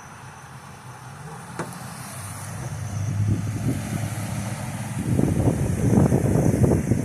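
A road vehicle going by, its low rumble building over a few seconds. Strong wind gusts buffet the microphone over the last two seconds, the loudest part.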